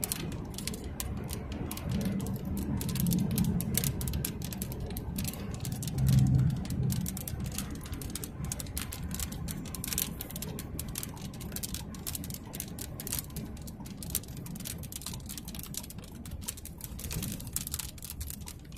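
Vehicle driving on a dirt road: a steady low road rumble with a dense scatter of small sharp ticks, and a louder bump about six seconds in.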